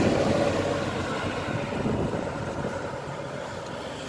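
A motor vehicle's engine running nearby, loudest at first and fading away, like traffic passing by.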